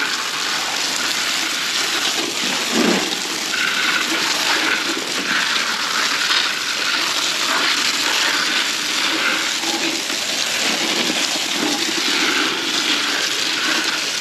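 Steady spray of water from a hand-held hose pouring onto live crawfish in plastic buckets, splashing over the shells as they are rinsed.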